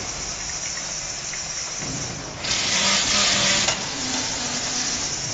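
Automatic carton folding and sealing machine running steadily, with a loud hiss of compressed air lasting about a second midway from its pneumatic flap-folding mechanism.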